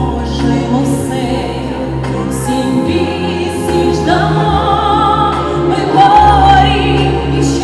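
A woman singing a Ukrainian song into a microphone over an amplified musical accompaniment with a steady bass line. She holds a long note with vibrato near the end.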